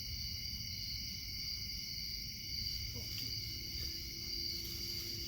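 Steady chorus of night insects, crickets or similar, a continuous high-pitched trill, over a low rumble.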